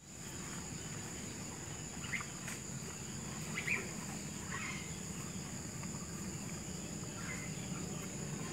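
Steady high-pitched insect drone with a few short bird chirps scattered through it, over a low steady rumble.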